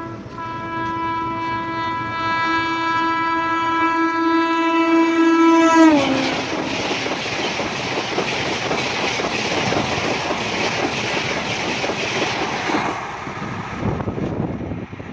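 Indian Railways express train passing at high speed, sounding a long steady horn that drops sharply in pitch as the locomotive goes by about six seconds in. The rush and rapid wheel clatter of the coaches follows for several seconds and fades near the end.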